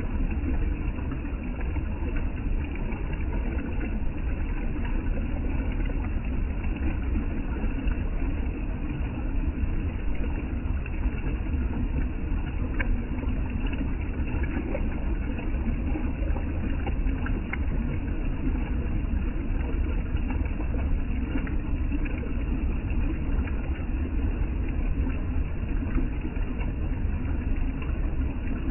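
River water rushing steadily: a constant, unbroken noise, heaviest in the low end.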